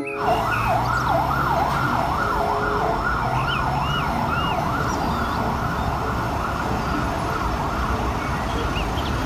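Fire engine siren wailing in quick rise-and-fall sweeps, about two a second, over the low rumble of street traffic.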